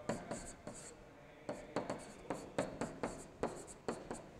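Stylus writing by hand on a digital whiteboard: a faint, irregular string of short ticks and scratches as the letters are stroked on.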